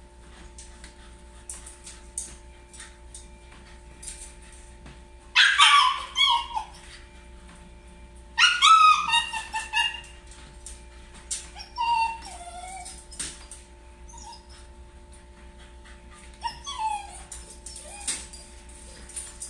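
A Shiba Inu whining in high-pitched cries that fall in pitch: two loud ones a third and half of the way in, then two fainter ones. Its distress cries are from being left home alone. Faint scattered clicks and a steady low hum run beneath.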